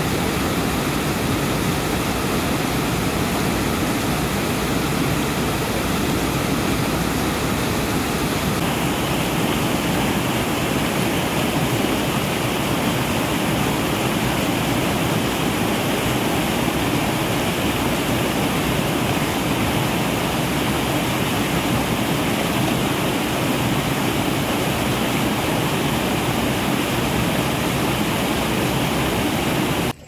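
Waterfall rushing steadily, an even, unbroken noise of falling water; its tone shifts slightly about nine seconds in.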